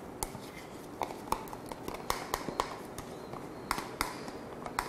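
Metal spoon scraping an egg yolk out of a small plastic cup over a mixing bowl: a run of light, irregular clicks and ticks.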